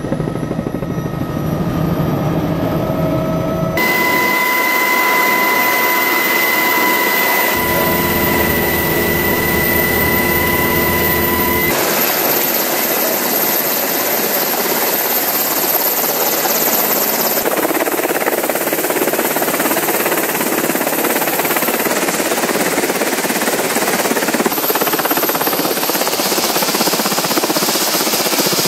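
Helicopter rotor and turbine noise, steady and loud, with a steady whine in the first part. The sound changes abruptly several times.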